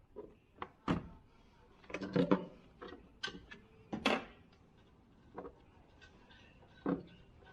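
Hand tools working on engine-mount bolts: irregular metallic clicks, clinks and a few duller knocks, roughly one or two a second, as a wrench or socket is fitted and turned.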